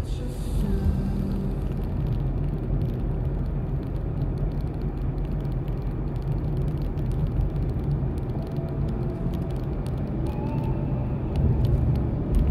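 Steady low rumble of a car being driven, with road and engine noise heard from inside the cabin.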